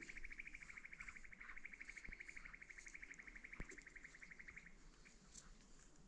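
Faint, steady, rapidly pulsed high trill from a small animal, stopping about three quarters of the way through, with a single light knock a little past halfway.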